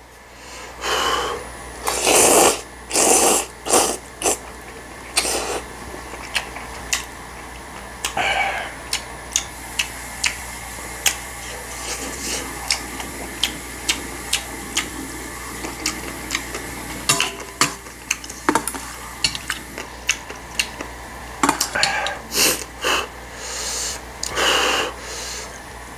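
Mukbang eating sounds: jjapaguri noodles slurped in several loud bursts near the start and again near the end, with wet chewing and many small sharp clicks of mouth and metal chopsticks in between.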